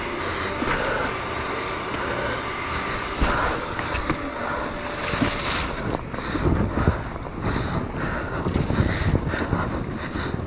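Off-road motorcycle running on a rough forest trail, heard through a helmet-camera microphone that is full of wind and rubbing noise, with knocks and clatter from the bike over the ground, most of them between about six and nine seconds in.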